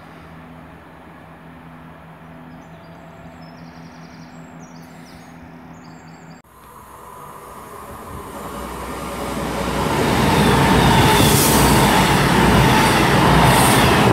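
A low steady diesel hum at first. About six and a half seconds in it cuts off sharply, and a Class 221 Super Voyager diesel-electric train is heard approaching and passing through the station at speed: a rushing rumble that rises and stays loud.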